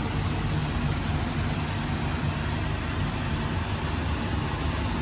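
Gas stove burner running under a wok of noodles, a steady low rushing noise with no breaks.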